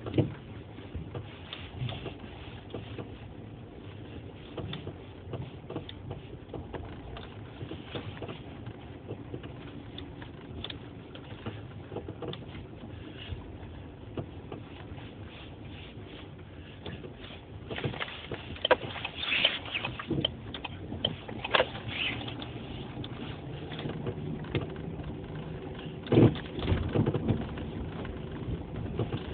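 Worn anti-roll bar (stabilizer) links on a Citroen C3 Picasso knocking: a string of irregular short knocks over steady car noise, with louder knocks clustering about two-thirds of the way through and again near the end.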